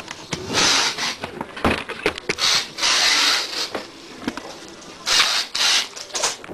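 Handling noise of a hard accordion carrying case being opened: scattered sharp clicks from its latches and lid, with several bursts of rustling as the plush lining is rubbed close to the microphone.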